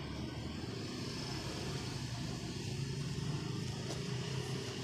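Steady low motor hum, like a motor vehicle running in the background, with faint handling of the cardboard printer box and its plastic wrap.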